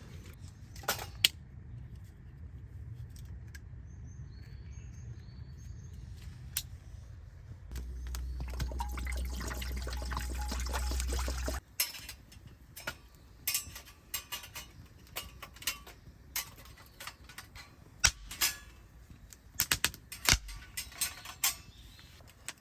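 Camp cooking sounds: a steady rush of water being poured for about four seconds, cutting off suddenly, then a run of light metallic clinks and knocks of cookware being handled.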